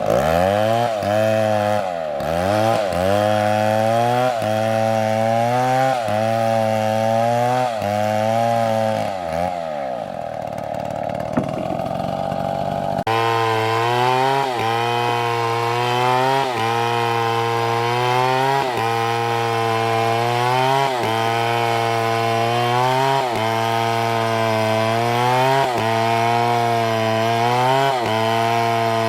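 Two-stroke chainsaw cutting through wood, its engine speed dipping and recovering again and again every second or two as the chain bites. About halfway through the sound cuts abruptly to another cut with the same rhythm.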